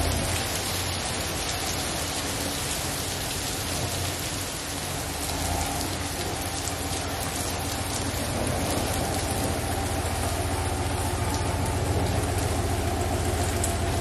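Heavy rain pouring down in a steady, dense hiss. In the second half a GMC pickup truck's engine hums low beneath it as the truck backs up close.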